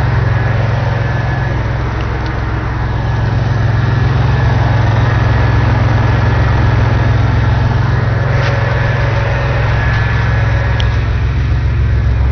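Car engine idling steadily with the air conditioning on max and the AC compressor clutch engaged.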